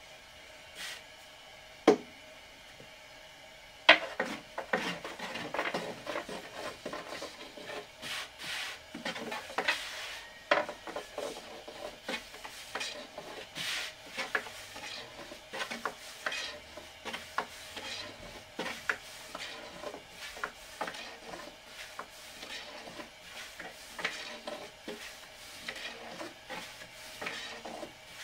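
Two sharp knocks, about two and four seconds in. After the second, a busy, uneven run of rubbing and scraping goes on, with many light clicks and knocks.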